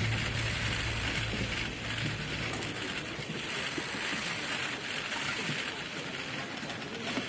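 Steady hiss-like background noise, with a low hum that fades out about three seconds in.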